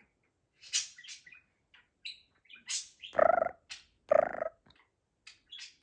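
Budgerigar chattering: quick high chirps and warbles, with two short pitched, speech-like mimicked phrases about three and four seconds in.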